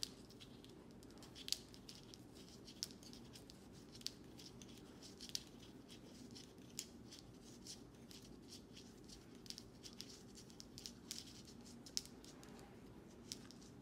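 Circular knitting needles clicking softly as stitches are knitted, with irregular small ticks every second or so over a quiet room hum.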